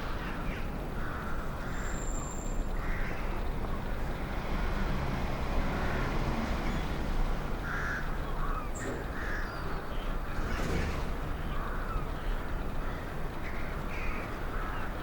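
Crows cawing repeatedly over the steady low rumble of distant city traffic.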